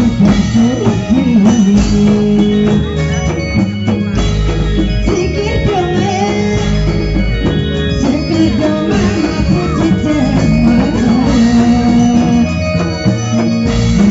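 Live Indramayu reog ensemble playing: hand drums and cymbal keep a dense rhythm under sustained low tones and a wavering melody line that bends in pitch.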